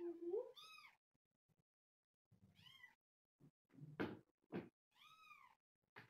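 Kittens mewing: a string of short, high-pitched mews, each rising and then falling in pitch, with pauses between them. A lower, held cat call sounds right at the start.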